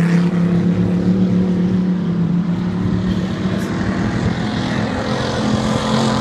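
Racing powerboat engine running at speed out on the course, a loud steady drone that eases a little as the boat moves away.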